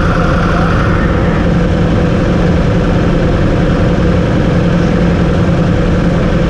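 Yamaha R1's inline-four engine idling steadily, heard close up from a bike-mounted camera.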